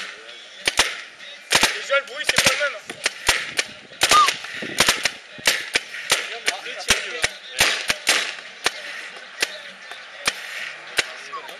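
Paintball markers firing: a long string of sharp pops at irregular intervals, some in quick runs of two or three shots.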